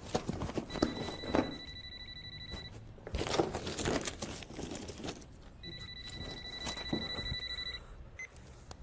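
Cordless telephone ringing twice, an electronic trilling ring about two seconds long each time, with papers and books being rummaged and thumped around it.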